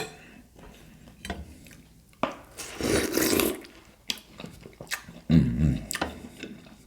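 Close-miked eating sounds: a wet bite into a watermelon slice and chewing, with a few small clicks and rubbing in between.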